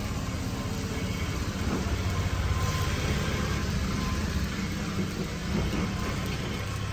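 Steady low rumble with an even hiss over it: a ghee tadka frying in a pan over a high gas flame.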